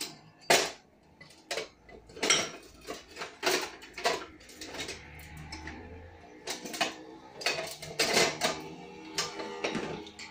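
A steel spanner and small bolts, washers and nuts clinking and clanking against the metal pulley as they are handled, in irregular sharp knocks.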